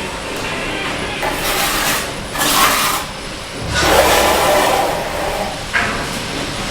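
Bricklaying work: a few noisy scrapes, each half a second to a second long, with a short sharp knock near the end.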